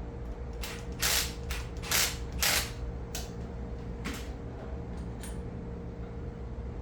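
Gas hose and hose-clamp fitting being worked by hand: a run of short scraping, creaking handling noises, loudest in the first three seconds and sparser after, over a steady low hum.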